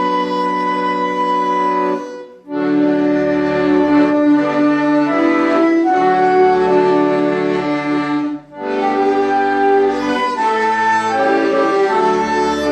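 Instrumental music of held, sustained chords, which breaks off briefly about two and a half seconds in and again about eight and a half seconds in.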